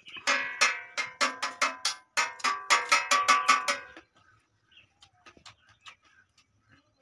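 A metal bell rung rapidly, about four strikes a second, in two runs of about two seconds each with a short break between; it stops about four seconds in, leaving only faint clicks.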